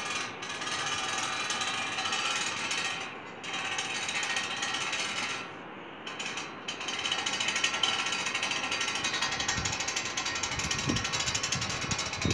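Hand winch of a homemade crane ratcheting as it reels in its cable and hoists a bucket, the pawl clicking rapidly and steadily. The clicking breaks off briefly a few times, longest for about a second around the middle, and a few low thumps come in near the end.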